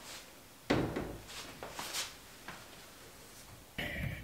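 Interior door handling: a knock a little under a second in, then a few light clicks and taps as a closet door is moved and someone steps past an ironing board into the closet.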